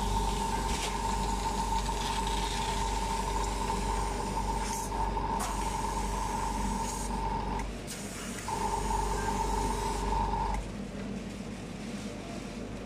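Motor-driven spray gun running with a steady whine and hissing air as chocolate is sprayed. It cuts out about seven and a half seconds in, runs again for about two seconds, then stops.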